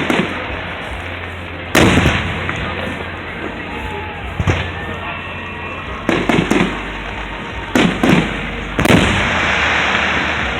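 Aerial fireworks bursting: a run of sharp booms, several in quick pairs in the second half, over a steady crackling and hiss of other shells.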